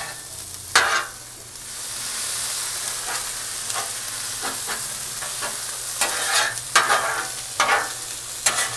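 Stir-fried noodles, vegetables and Spam sizzling on a Blackstone steel griddle while a metal spatula scrapes and taps across the cooktop as the food is tossed. The sizzle swells about two seconds in, and several sharp spatula scrapes come near the end.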